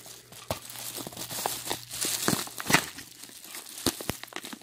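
Plastic bubble wrap being handled and pulled open by hand: irregular crinkling and rustling with many sharp crackles.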